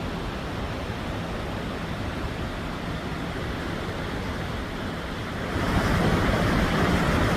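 Steady rushing noise that grows louder about five and a half seconds in.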